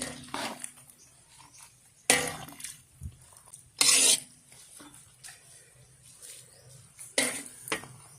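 A metal cooking utensil clanking and scraping against a pan while stir-frying noodles: about six sharp, irregular clatters, the loudest about two and four seconds in.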